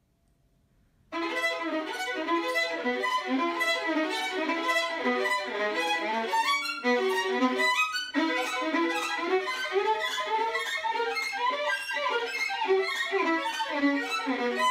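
Solo violin playing a fast passage of quickly changing bowed notes, starting about a second in, with two brief breaks partway through.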